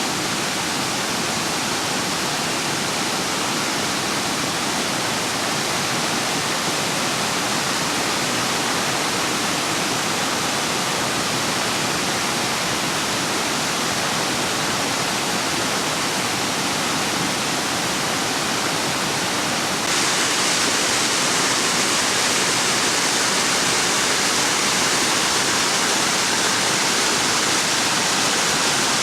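Rain-swollen water rushing down a ravine, a steady roar of running water. About two-thirds of the way through it steps up suddenly, louder and hissier.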